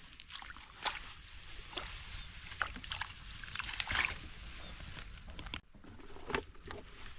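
Irregular sloshing and squelching in wet mud and shallow water, as something moves through it.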